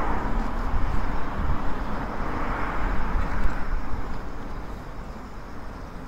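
Outdoor background noise: a low rumble of wind on the microphone and a distant passing vehicle whose noise swells and then fades away near the end.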